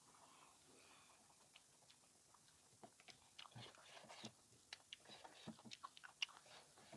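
A person quietly chewing a mouthful of food, with small sharp mouth clicks coming more often from about three seconds in.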